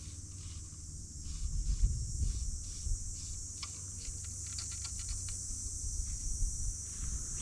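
Outdoor ambience: wind rumbling on the microphone under a steady high-pitched insect drone, with a quick run of small ticks through the middle.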